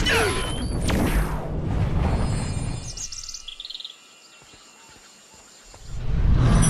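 Cartoon sound effects: a loud rumbling noise that fades out over about three seconds, then a few quick bird chirps and a short lull, before another swell of noise near the end.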